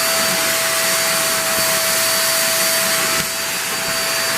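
Hoover React Professional Pet vacuum running through its hose and small crevice tool, with suction eased off at the handle: a steady rush of air with a steady motor whine. The level dips slightly about three seconds in.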